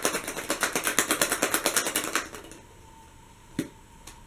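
A small toy rattling inside a hollow plastic surprise egg as it is shaken: rapid, even clicks about ten a second that stop a little after two seconds in. One sharp click follows near the end.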